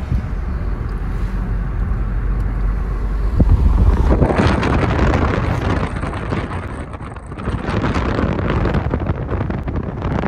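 A Suzuki car driving with a window open: a low road and engine rumble, then, from about four seconds in, loud wind rushing over the microphone.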